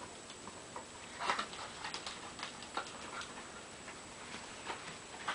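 A newborn's hiccups, small short catches at irregular intervals of about half a second to a second, mixed with light rustling of bedding as she kicks.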